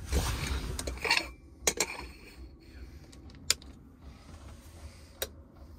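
A spoon scooping ground coffee from a glass jar and tipping it into a coffee filter cone, a rustling scrape in the first second, then a few sharp clicks and taps as the kitchen things are handled and set down.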